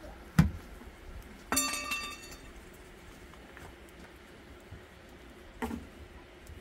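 A sharp knock, then an object struck with a clink that rings for about half a second, and another knock near the end: objects being handled and set down.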